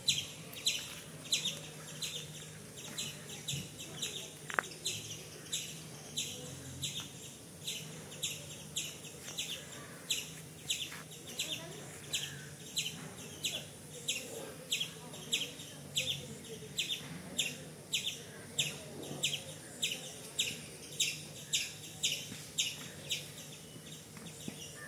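A high, rasping chirp from a small creature in the trees, repeated steadily about three times every two seconds, over a faint low hum.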